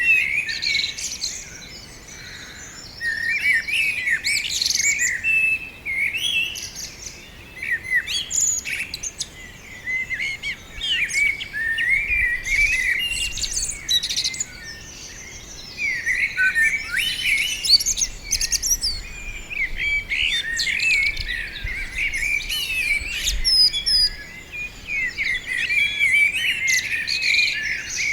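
Several songbirds singing and chirping, with short warbled phrases and quick chirps overlapping one another almost without a break.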